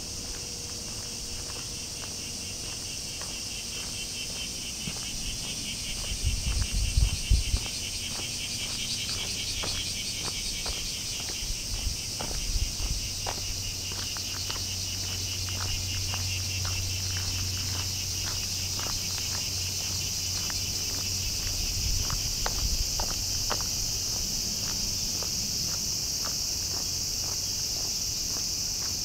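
Bear cicadas (kumazemi) singing: a dense, steady high buzz with a fast pulsing rasp beneath it. Low thumps break in about six to seven seconds in and again around twelve seconds.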